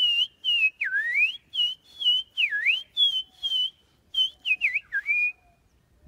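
A person whistling a forest bird-style call: a run of short high whistled notes, with two long swoops down and back up about one and two and a half seconds in. Quicker dips follow, and it ends on a lower held note a little after five seconds.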